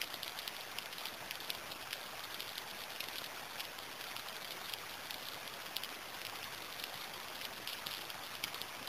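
Steady rain falling, with many separate drops pattering close by.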